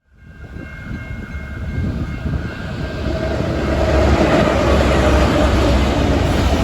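Freight train led by three diesel locomotives approaching, its engine rumble and wheel noise building steadily louder over the first four seconds, then holding loud.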